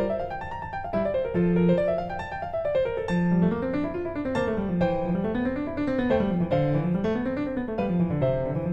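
Background piano music: a flowing piece of rising and falling arpeggios over sustained bass notes.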